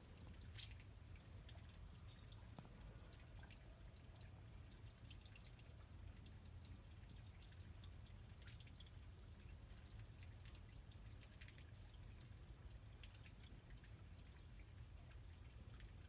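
Near silence: a faint steady trickle of water from a watering can rigged as a bird shower, dripping into a dish below it. A few faint short high ticks come through, once near the start and twice around the middle.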